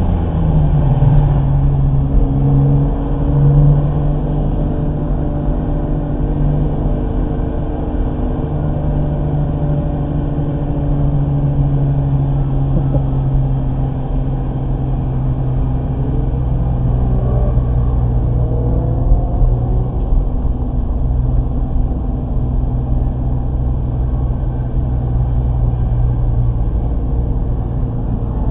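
Car engine running hard through a lap on a racetrack, heard from inside the cabin, with a fairly steady engine note that dips and rises a little through the corners, over constant road and wind noise.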